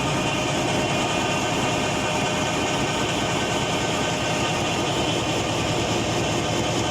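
Corrugated carton flexo printer slotter die-cutter running steadily: an even mechanical din with a few faint steady tones over it.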